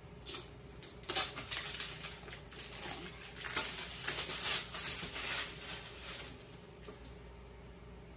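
Product packaging crinkling and rustling as it is handled and worked open, in irregular crackles over several seconds that stop near the end.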